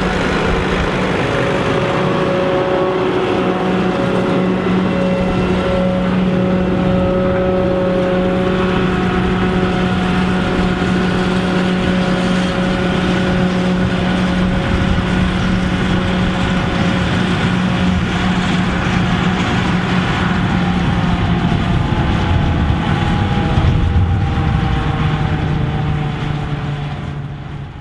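New Holland T7 200 tractor driving a JF 900 trailed forage harvester while cutting silage: a steady, heavy machine drone with a constant low hum. The whole sound fades out near the end.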